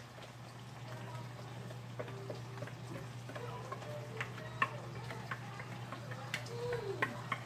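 Light, irregular clicks and taps from a clear plastic mixing bowl and spatula being handled as the cookie-and-cream mixture is poured out into a foil pan, over a steady low hum.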